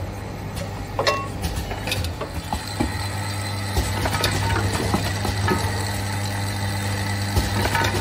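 Automatic lip gloss tube filling, plugging and capping machine running: a steady motor hum with irregular mechanical clicks and clacks from its moving parts.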